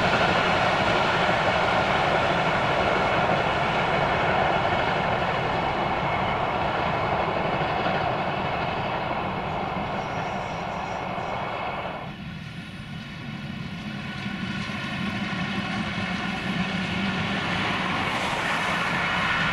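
Steam-hauled passenger train passing, its locomotives working under steam with a steady running noise. About twelve seconds in the sound drops abruptly, then builds again as the train comes nearer.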